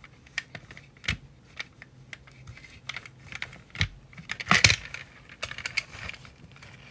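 Irregular light clicks and taps of a plastic toy car and a cloth being handled and rubbed on a wooden floor, with a louder clatter about four and a half seconds in.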